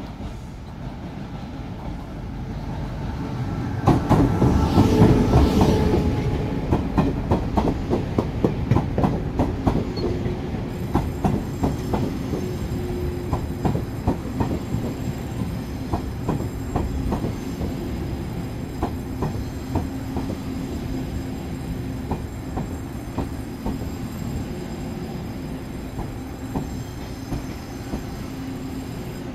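A Taiwan Railways Tze-Chiang express train pulls into a station and runs past close by. It is loudest as the front end passes, about four seconds in. After that the wheels click over the rail joints at a slowing pace as the train brakes, and a thin high squeal joins from about ten seconds in.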